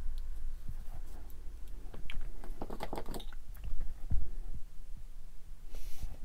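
Handling noise of small plastic model-kit parts: irregular light clicks and taps as the parts are turned and pressed in the fingers, busiest about two to three seconds in, over a low hum that fades about two seconds in. A short hiss comes just before the end.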